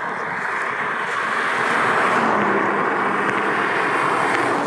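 BMW M140i's turbocharged straight-six and tyre roar as the car drives towards the microphone, growing louder over the first couple of seconds, with a steady engine note coming through about halfway in.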